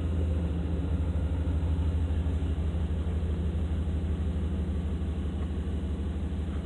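Dodge Ram pickup's engine running steadily at low revs, heard from inside the cab while the truck is slowly backed and manoeuvred.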